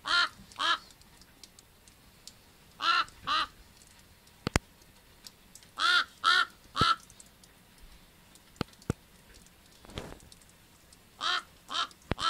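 Common raven calling: short, hoarse croaks in four runs of two or three, with pauses of a few seconds between the runs. A few sharp clicks sound in the gaps between the runs.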